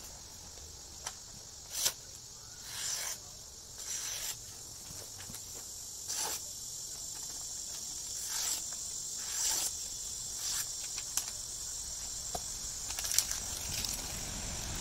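Steady high buzzing of insects, with a handful of short swishing, rustling strokes over it as a sheet of paper is handled and sliced with a big knife to test its edge.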